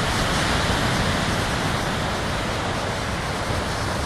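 Steady rushing hiss of small ocean waves washing onto a sandy beach.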